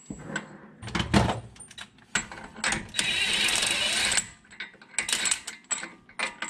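Metal clinks of hand tools and a socket being handled, then a Ryobi cordless impact wrench runs for about a second with a steady whine, spinning off the freshly loosened front axle castle nut. More clinks follow.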